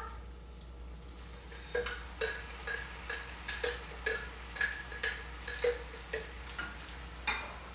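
A spoon stirring toasting risotto rice in a pan, clinking against the pan about twice a second with a short ringing note, over a faint sizzle.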